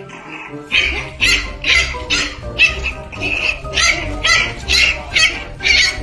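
French bulldog puppy yelping in short high cries, about two a second, over background music whose bass comes in about a second in.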